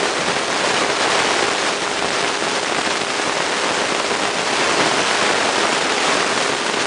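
A steady, even hiss of noise with no clear pattern or pitch.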